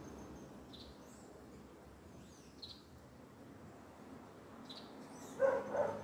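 Small birds chirping outdoors, one short high chirp about every two seconds, over a faint steady high insect trill that fades out early and returns near the end. Near the end a louder, lower call, like a dog's brief yelp, stands out above them.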